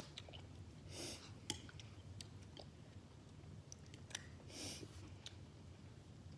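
Faint eating sounds from black bean noodles: chewing and two short slurps, with a few light clicks of chopsticks on plates.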